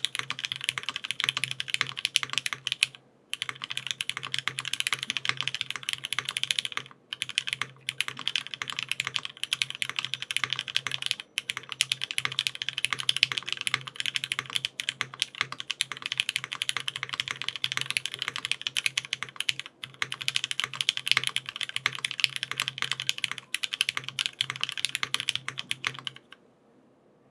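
Mechanical keyboard with lubed Cherry MX Black linear switches, an aluminium plate and GMK keycaps, typed on fast and continuously. The typing breaks off briefly a few times and stops about a second before the end.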